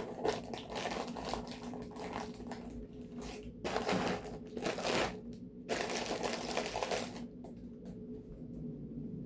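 Frozen mixed vegetables poured from a plastic bag into a bowl: the bag crinkling and the hard frozen pieces clattering in, in two longer stretches in the middle.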